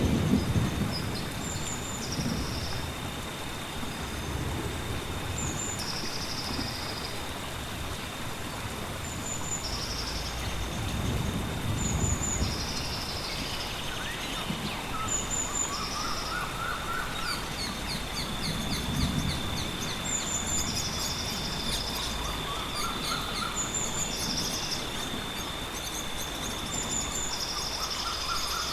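Rainforest nature soundscape: birds give short high calls every couple of seconds, and another call rising in pitch comes three times in the second half. A steady high insect drone runs over a hiss of rain, with low rumbles of distant thunder a third and two thirds of the way through.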